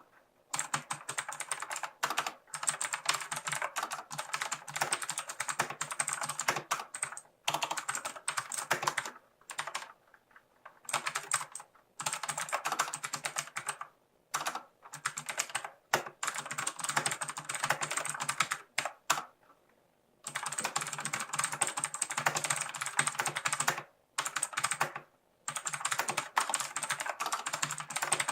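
Typing on a Lutis Lunatic K801 mechanical keyboard with Outemu clicky switches: fast runs of sharp, crisp key clicks in bursts of a few seconds, broken by short pauses.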